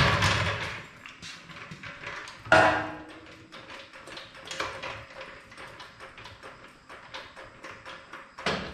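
Scattered light clicks and knocks from work being done, with a sharper knock about two and a half seconds in and louder sounds again near the end.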